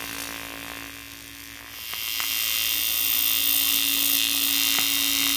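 Electric arc welding on an aluminium carrier: a steady buzzing hum with a hissing crackle of the arc that gets louder about two seconds in.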